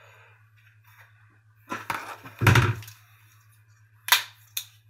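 Knives and leather sheaths handled and set down on a granite worktop: a few knocks and scrapes, the loudest a heavy thud about halfway through, then two sharp clicks near the end. A steady low hum runs underneath.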